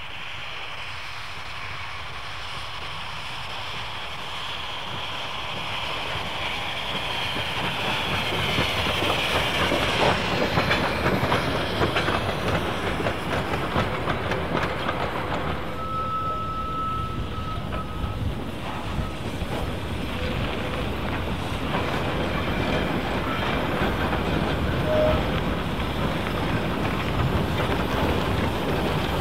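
Steam train of NZR Ab class locomotive 795 and its carriages rolling past, wheels clicking over the rail joints. The running noise grows louder about eight seconds in.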